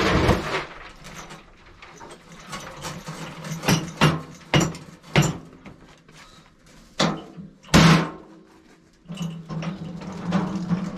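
A string of sharp mechanical clanks and clicks, about half a dozen separate knocks, over a faint steady low hum.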